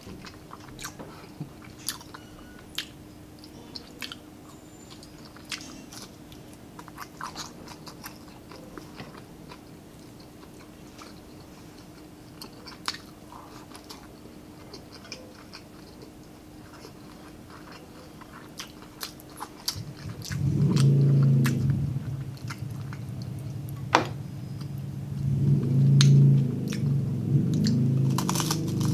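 Close-up chewing and biting of crispy fried pork and rice, with many small crunches and wet clicks. About two-thirds of the way in, a loud low hum comes in twice, louder than the chewing.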